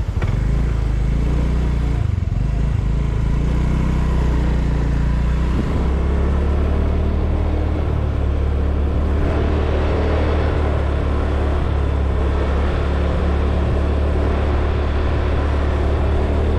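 Motor scooter engine running as it is ridden, with a rushing noise over it; the engine note steadies about six seconds in.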